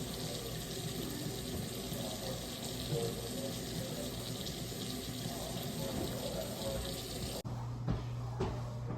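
Water running from a tap into a sink, a steady rush that cuts off abruptly about seven and a half seconds in. After it come a low steady hum and a few light knocks.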